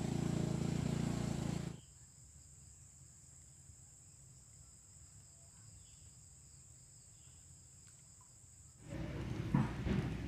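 A steady, high insect chirring, as of crickets, heard through a quiet stretch; a low engine-like hum cuts off about two seconds in and comes back near the end.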